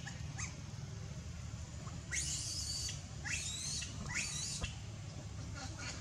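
Baby macaque squealing: three high, wavering calls in a row from about two to five seconds in, with fainter squeaks near the start and end.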